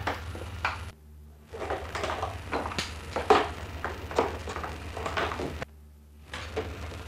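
Spool clamps knocking and clattering as they are handled and fitted around the rim of a viola da gamba body: irregular sharp clicks and knocks, several a second. A steady low mains hum runs under them and drops out twice, briefly.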